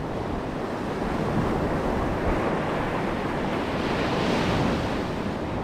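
Ocean surf breaking and washing up a sandy beach: a steady rush, with one wave swelling louder about four seconds in. A low rumble of wind on the microphone runs under it.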